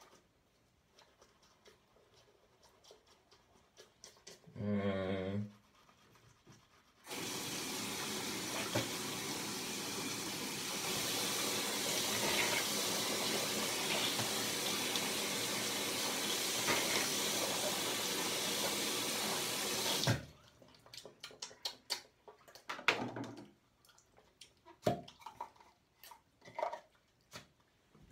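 Bathroom sink faucet running steadily into the basin for about thirteen seconds while teeth are rinsed after brushing, then stopping suddenly. Before it comes faint toothbrush scrubbing and a short throaty vocal sound; after it come light clicks and taps at the sink.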